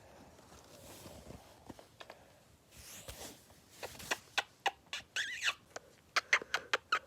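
Pet hamster squeaking: a quick run of short, high squeaks in the second half, after a few soft clicks.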